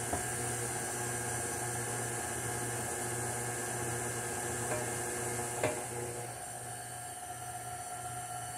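KitchenAid stand mixer's motor running steadily, beating cake batter while flour is added. Two light clicks about five and six seconds in.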